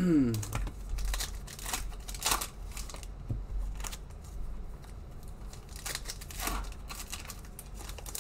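Plastic trading-card pack wrappers crinkling and tearing open, with cards being handled and slid, making a scatter of short crackles and rustles. A brief falling vocal sound comes right at the start.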